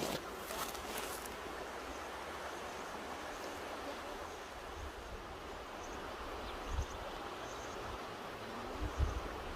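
Mountain river rushing steadily over rocks, an even roar of water, with a few sharp clicks about a second in and a couple of low thumps near the end.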